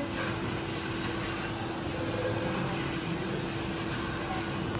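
Steady room ambience of a crowded hall: a low murmur of spectators with a constant low hum underneath.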